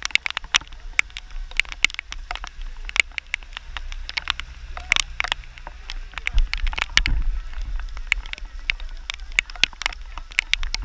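Raindrops tapping irregularly on the camera's housing, several sharp taps a second, over a low wind rumble on the microphone that swells about two-thirds of the way through.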